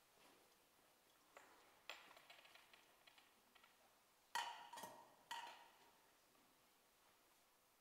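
Light clinks and knocks from sacred vessels and the tabernacle being handled at the altar after communion. There are a few faint clicks, then three louder knocks with a short ring about four to five and a half seconds in, against near silence.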